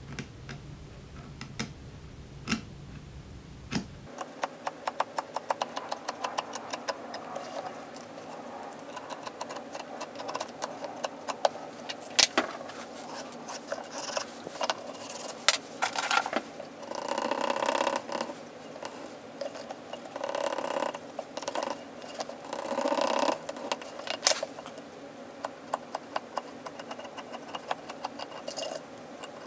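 Hand tools working thick leather: a few sharp clicks of a utility knife trimming the edge at first, then a dense run of small clicks and taps, with three rasping rubbing strokes along the leather edge a little past the middle.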